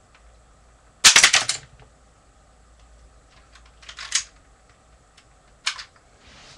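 Clicking and clattering of plastic Lego bricks and parts from a Lego brick-shooting gun: a loud rapid burst of clicks about a second in, then two shorter clusters of clicks near four and near six seconds.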